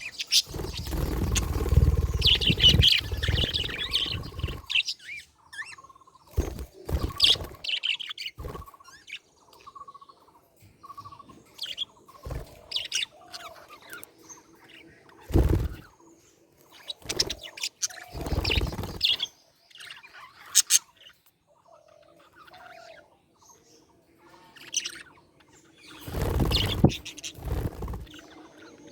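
Pet budgerigars chirping and chattering in short, irregular bursts. A loud rustling burst in the first few seconds and a few brief bumps later are also heard.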